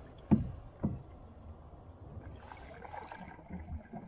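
Paddle strokes from a solo canoe on calm water: two sharp knocks about half a second apart near the start, then softer sounds of the paddle working the water.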